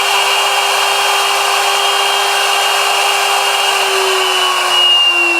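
High-speed router motor (a CNC spindle or a handheld wood router) running with a steady, loud whine. Its pitch begins to slide slowly lower about four seconds in.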